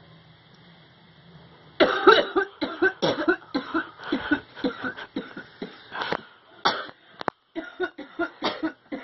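Harsh, rapid coughing fit that breaks out about two seconds in, after a long-held hit of cannabis smoke from a pipe.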